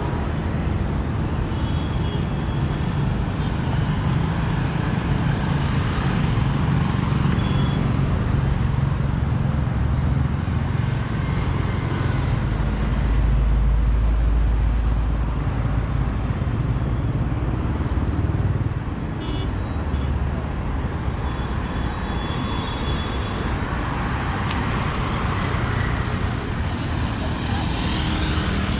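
Road traffic on a wide multi-lane road: a steady wash of cars and motorcycles passing, with a deeper low rumble swelling about halfway through.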